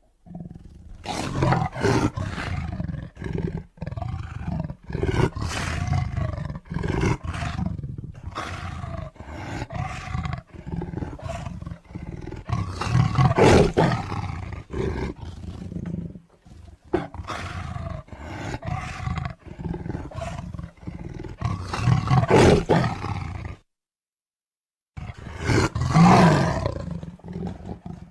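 A long series of deep, rough animal roars, one call after another with brief breaks between them and a pause of about a second and a half near the end.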